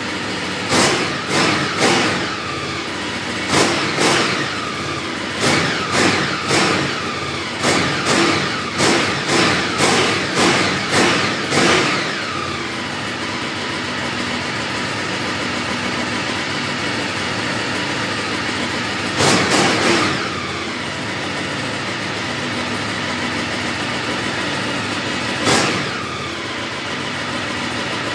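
Ducati 848 Evo's 90-degree L-twin engine revved with short, sharp throttle blips, about a dozen in the first twelve seconds, then settling to a steady idle broken by two more blips later on.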